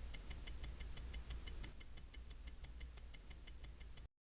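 Mechanical watch escapement ticking: a fast, even train of sharp ticks, roughly six to eight a second, over a low hum, cutting off suddenly near the end.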